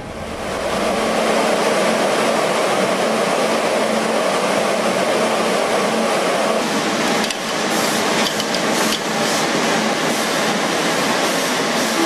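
Weaving-mill textile machines running: a dense, steady mechanical clatter with a low hum, and sharper clicks standing out over it in the second half.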